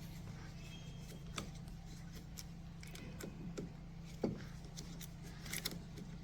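Faint, scattered small clicks and taps of a hand tool working the screws that hold a shaft coupling onto an electric motor, over a steady low hum.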